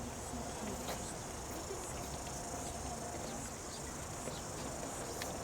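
Steady high-pitched insect chirring in the background, with a few faint clicks.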